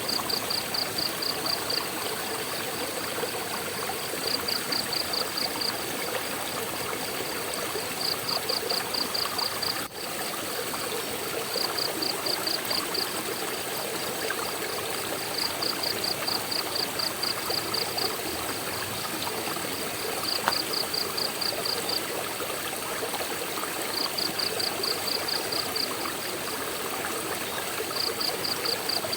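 Waterfall water rushing and splashing steadily. Over it, a high chirping in short runs of about six pulses a second, each run lasting about a second and a half and coming back every four seconds or so.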